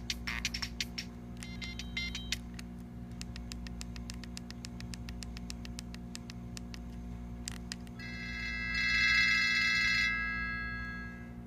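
Siemens A70 mobile phone ringtones played through the phone's small speaker, one after another. A beeping electronic melody ends, then a short tone figure plays. A run of even, clock-like ticks follows for several seconds. About eight seconds in comes a loud held buzzing electronic chord that fades out.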